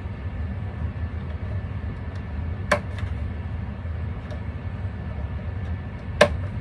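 Two sharp clicks about three and a half seconds apart as the lever-lock tabs of an Experience Lights Genius Pro 16 controller's wire connectors are pushed down on inserted wires, over a steady low hum.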